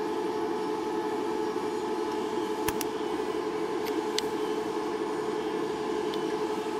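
A steady mechanical hum with a faint thin whine, unchanging throughout. A few light clicks sound over it, two around a third of the way in and two more past the middle, as the wooden ring is handled.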